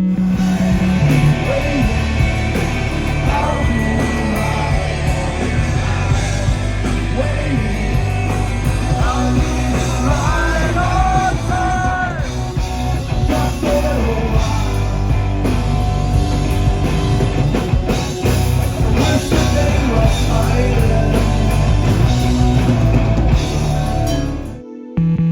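Loud rock band playing with sung and shouted vocals, punk-style, recorded live; it cuts off abruptly near the end.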